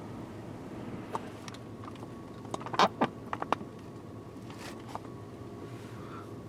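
Steady low rumble inside a vehicle, with a quick cluster of sharp clicks and knocks about three seconds in.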